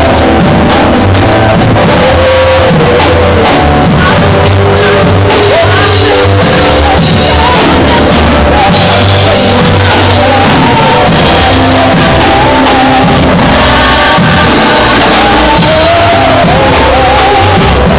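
Loud band music with singing over a steady drum beat.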